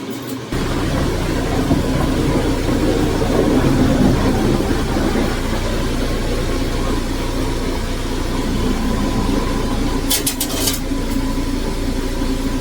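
Dodge Journey's engine running at low speed as the SUV is driven slowly in, a steady low rumble, with a few quick clicks about ten seconds in.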